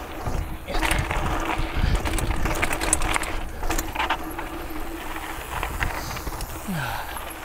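Mountain bike ridden fast over a dusty dirt trail: tyres rolling and crunching on loose dirt, with the chain and bike rattling and clicking over the bumps.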